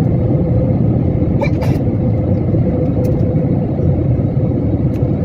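Jet airliner cabin noise on final approach: a steady low rumble with a constant hum from the engines, heard from inside the cabin.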